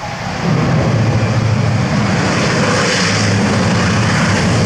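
The four Europrop TP400-D6 turboprop engines of an Airbus A400M on its landing roll. Their sound rises sharply about half a second in, then holds steady, loud and deep, as the propellers are run up in reverse to stop the aircraft in a very short distance.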